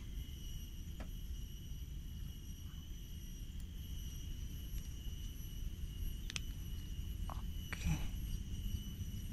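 A steady high-pitched whine over a low rumble, with a few faint clicks from hands working a fishing float and line, the loudest near the end.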